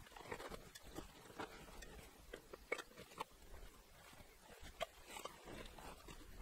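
Gear being packed into a backpack: faint fabric rustling with scattered, irregular light clicks and knocks as items are handled and pushed in.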